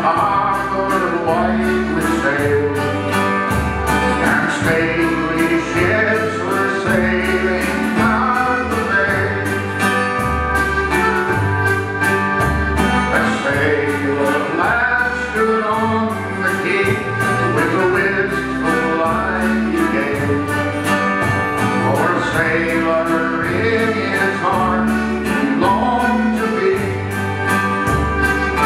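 Live band playing a sea shanty: sung vocals over strummed acoustic guitar, electric bass and drums, with a steady beat.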